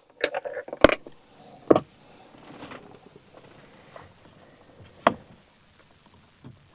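A few sharp, separate clicks and taps with faint handling noise between them: a small pick tool working a plastic wiring connector free from a steering-column clock spring.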